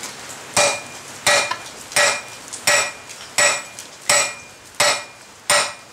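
Hammer striking red-hot flat steel bar on the anvil, eight steady blows at about three every two seconds, each with a short metallic ring. The bar is being necked down at a marked point while forging tong jaws.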